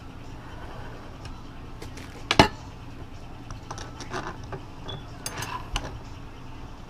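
A white plastic printer part being handled on a steel guide rod: a sharp knock about two and a half seconds in, then scattered clicks and short scrapes as it is shifted by hand.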